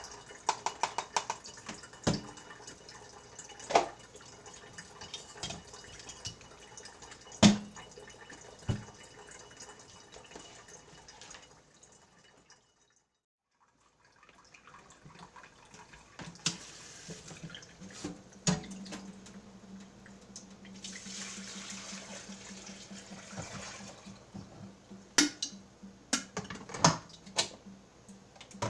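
Kitchen faucet running into a stainless steel sink while a glass coffee carafe and a cup are rinsed and handled, with sharp clinks and knocks. The sound drops out briefly about halfway through, then returns with a steady low hum and a few sharp clicks near the end.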